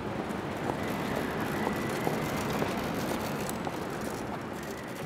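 Dense, rumbling noise texture from the closing ambient-industrial score, with a faint steady high tone and a few scattered clicks, beginning to fade out near the end.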